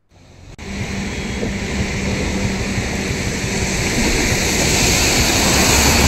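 Heavy floodwater rushing, a dense steady rush that fades in and builds gradually, with a faint low hum underneath.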